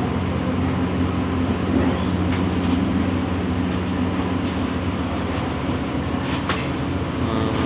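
A machine running steadily: a low, even, engine-like hum with a rushing noise over it, and a few faint ticks near the end.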